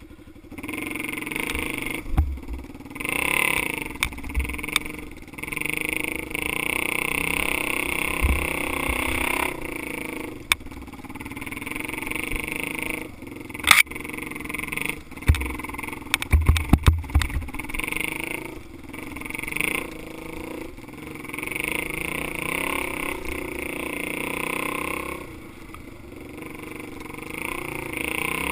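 Dirt bike engine running under load, revving up and down with the throttle as the bike is ridden over a rough trail. Sharp knocks from the bike hitting bumps come through now and then, with a quick cluster of them a little past halfway.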